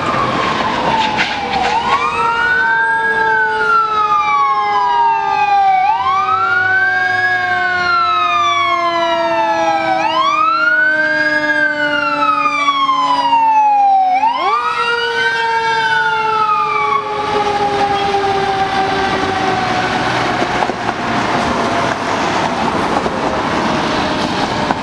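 Fire engine siren on a 2005 Pierce pumper, sounding a wail that rises quickly and falls slowly about every four seconds, four times over. The siren stops about two-thirds of the way through, leaving engine and road noise.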